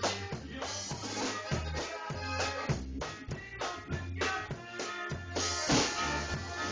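Music with a drum kit and bass guitar playing a steady beat.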